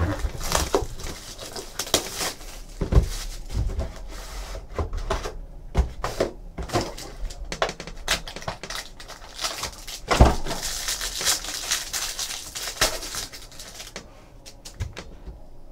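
A 2014 Panini Absolute football card box being opened and a pack wrapper torn open and crinkled, with clicks and rustles of cardboard and cards being handled. A sharper knock comes about ten seconds in.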